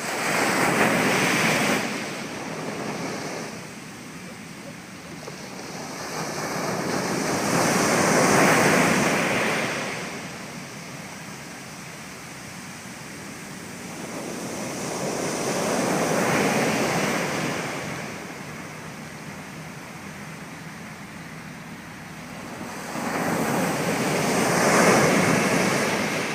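Sea waves breaking and washing in, four swells about eight seconds apart, each rising to a rush and falling back.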